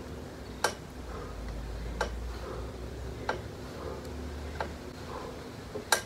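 Elliptical trainer being pedaled backward, clicking sharply about once every 1.3 seconds, five clicks in all, over a faint low rumble.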